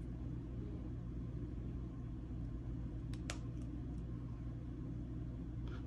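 Steady low hum, with a single sharp click about three seconds in as a replacement hall sensor board is snapped onto the end of a Schwintek DC motor.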